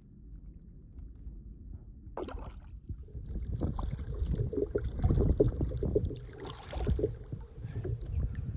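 Low rumbling noise with scattered short knocks and clunks, and a brief louder patch about two seconds in.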